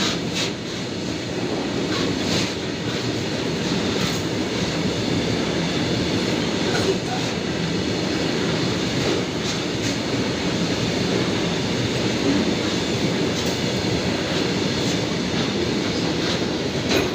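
Tank wagons of a petroleum oil tanker freight train rolling steadily past, a continuous rumble with irregular sharp clicks of wheels crossing rail joints.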